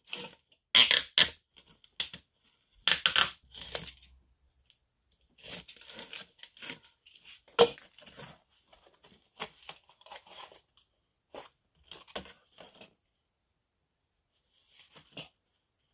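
Corrugated plastic (coroplast) sign panels scraping, rustling and flexing as they are handled and bent on a wooden board. Several loud scrapes in the first four seconds, then softer scrapes and clicks with one sharp crack a little past halfway.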